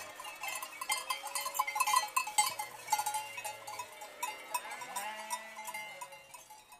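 Many sheep bells ringing and clinking as a large flock of sheep moves, with sheep bleating now and then; it fades near the end.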